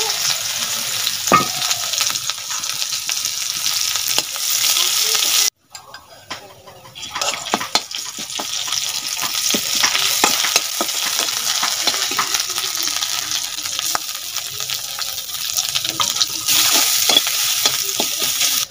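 Food sizzling as it fries in a steel wok, with a steel spatula scraping and clicking against the pan as it is stirred. The sound cuts off abruptly about five and a half seconds in, then the frying and stirring resume.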